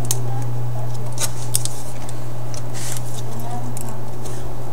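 Steady low electrical hum under light, scattered clicks and taps from small tablet parts being handled during reassembly.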